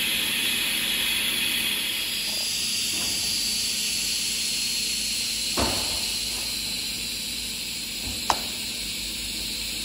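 Steady hissing workshop background noise with a faint low hum. A dull knock comes about five and a half seconds in, and a short, sharp metallic click with a brief ring comes about eight seconds in.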